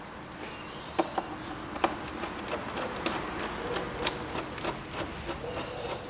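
Irregular run of sharp clicks and light metallic taps from a hand tool working the hose clamps on a car engine's air intake duct, with two louder knocks about one and two seconds in.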